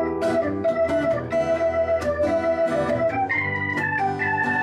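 Live band music led by a Korg CX-3 drawbar organ holding sustained chords, with acoustic guitar strumming under it.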